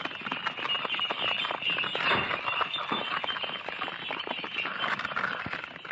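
Bullock carts passing on a dirt road: a dense, continuous clatter of many small clicks and knocks.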